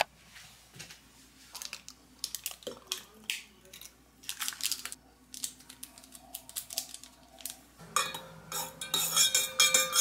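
Scattered clicks and rustles of kitchen items being handled, then from about eight seconds a spoon stirring quickly in a stainless-steel tumbler, clinking rapidly against the metal wall with a ringing tone.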